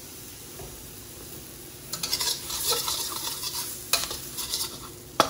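Chicken and egg sizzling in a wok. The frying gets louder about two seconds in as a spatula starts stir-frying, and the spatula clacks and scrapes against the wok twice near the end.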